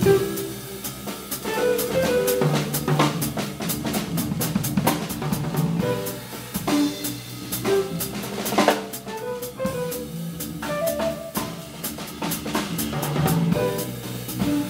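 A live jazz-fusion band playing: a busy drum kit, loudest, with snare, bass-drum and cymbal hits, over electric bass, electric guitar and piano.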